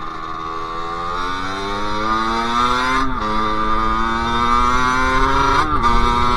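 Sherco SM-R 50's 50cc two-stroke engine accelerating under load, its pitch climbing steadily. Two brief dips, about three seconds in and near the end, sound like the throttle shutting for upshifts.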